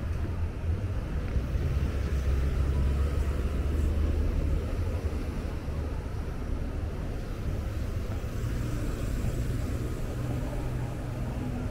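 City street traffic: a steady low rumble of cars passing on the road alongside, heaviest in the first few seconds.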